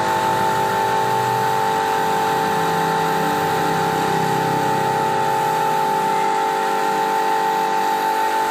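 Steady hum of an air compressor with a set of constant tones, under the hiss of a gravity-feed spray gun spraying varnish.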